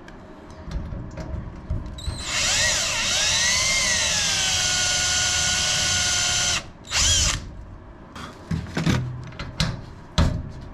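Cordless drill drilling out the head of a badly set rivet in an aircraft main spar. After a low rumble, the motor whine sags and recovers under load, then runs steady for about four seconds and stops suddenly. A short second burst follows, then light clicks and taps.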